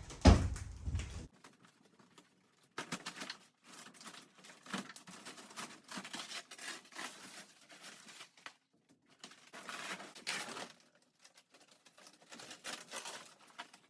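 A sharp knock near the start, then irregular rustling and scraping in short bursts with pauses: material being handled and pulled at inside the caravan.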